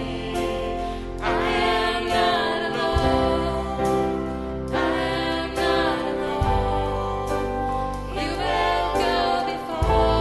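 Worship music: sustained chords over a bass note that changes every few seconds, with voices singing.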